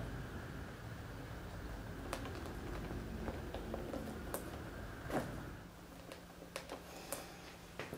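Hands pressing and rubbing the leather of a western saddle's seat, with scattered light taps and clicks and a sharper knock about five seconds in. A low rumbling handling noise fades out around then, leaving a faint steady hum.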